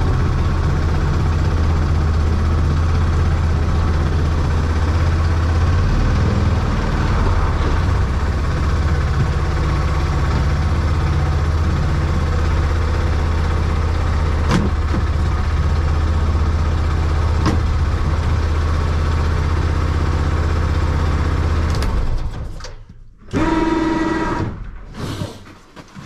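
Arctic Cat side-by-side engine running steadily with a low drone, with two sharp clicks midway. The engine sound cuts off abruptly near the end and a few short tones follow.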